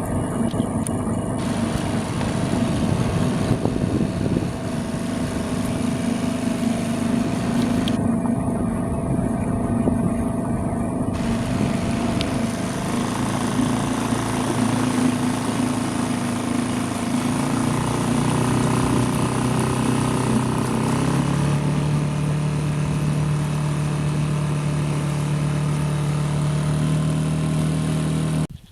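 Motor engine running steadily, settling to a lower, steady pitch about 21 seconds in; it cuts off abruptly near the end.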